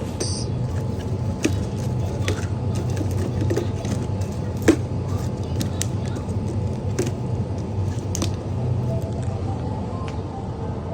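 Steady low hum of dining-room background noise, with scattered sharp clicks and clinks of tableware as the soup is eaten; the loudest click comes just under five seconds in.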